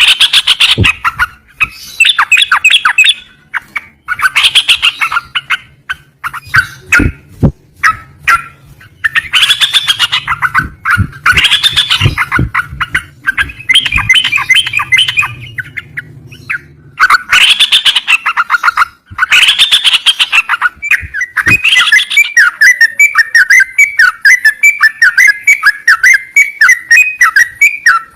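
A cerucukan bulbul singing loudly in repeated chattering phrases. Near the end it switches to a fast run of short repeated notes.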